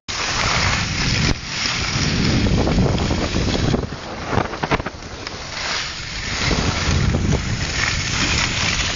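Wind buffeting the microphone of a camera carried by a skier going downhill, mixed with the hiss and scrape of skis sliding on snow. The noise swells and dips unevenly, with brief sudden drops about a second in and near four seconds.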